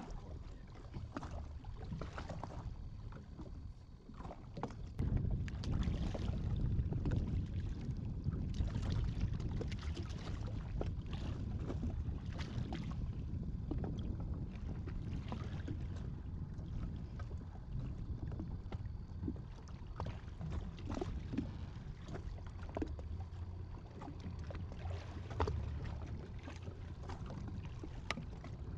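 Low rumble of wind and water slapping against a jet ski's hull on open sea, louder from about five seconds in, with scattered small clicks and knocks.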